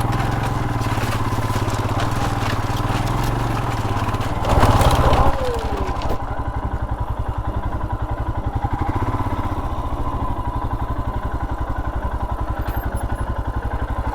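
Royal Enfield Himalayan's single-cylinder engine running slowly with an even, low beat, with a louder, rougher burst of throttle and clatter about four and a half seconds in.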